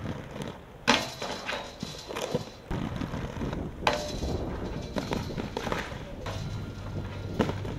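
Skateboard rolling over brick paving, its wheels clattering on the joints, with sharp wooden board snaps and impacts about a second in, about four seconds in as the skater pops over a handrail, and again near the end.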